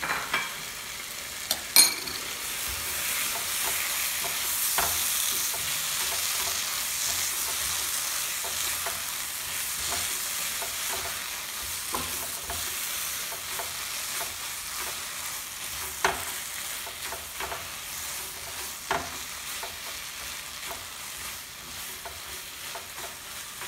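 Tomato and scrambled egg frying in a nonstick pan: a steady sizzle that swells a couple of seconds in as the spoonful of soy sauce hits the hot pan, then slowly eases, while a silicone spatula stirs and scrapes through the food. A sharp knock about two seconds in and a few lighter knocks later come from the utensils striking the pan.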